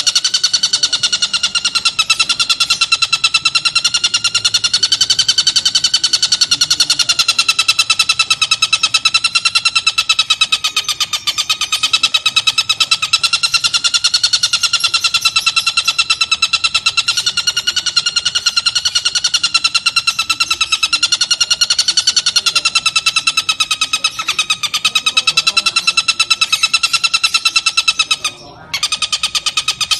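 Oriental dollarbird (tengkek buto) calling in a continuous, very rapid buzzing chatter at a nearly steady pitch, with one brief break near the end.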